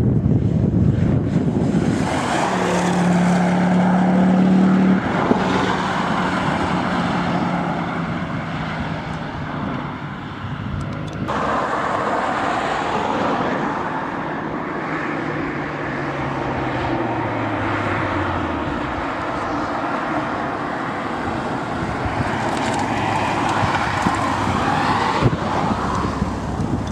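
Mk2 Ford Focus RS with an aftermarket Mountune exhaust, its turbocharged five-cylinder engine driving by on the road. The exhaust note holds steady at first; after a cut, on a second run, it falls in pitch for several seconds as the car goes by.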